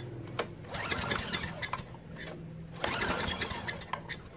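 Two pulls on the recoil starter of a Craftsman Eager-1 chipper vac's 5 hp engine, each a short run of whirring, rattling cranking that dies away without the engine firing: a cold start of an engine that has sat unused a long time.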